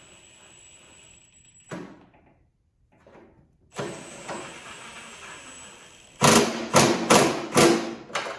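Cordless impact driver on setting one running a skid-shoe bolt in, then hammering in four or five short, loud bursts near the end as the bolt is driven tight. A single knock about two seconds in.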